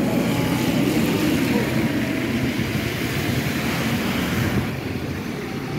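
Street traffic on a wet road: a vehicle engine running with tyre hiss from the wet surface, easing off a little near the end.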